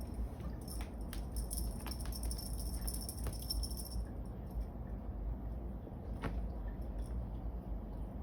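Cat teaser wand's small bell jingling and rattling as it is shaken and batted, with a few clicks; the jingling stops about four seconds in, and one more click comes near the end.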